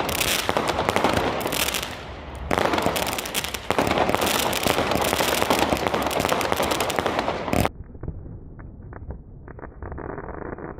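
Fireworks going off in a dense, rapid crackle of bangs that run together, with a brief lull about two seconds in. About seven and a half seconds in it cuts abruptly to a much quieter, muffled stretch with scattered pops.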